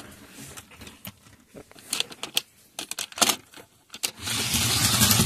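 Scattered light clicks and knocks. About four seconds in, the toy remote-control robot car's small electric motor and gears start a loud, steady whir.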